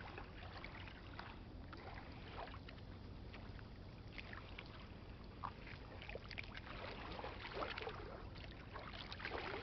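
Faint, steady low rumble of riverside outdoor ambience, with a few soft ticks scattered through it.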